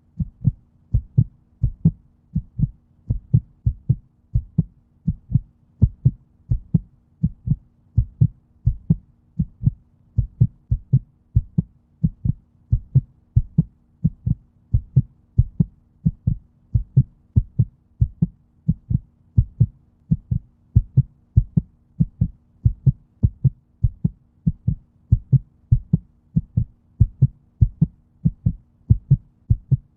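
Heartbeat in a steady, even rhythm, each beat a pair of low thumps (lub-dub), over a faint steady hum.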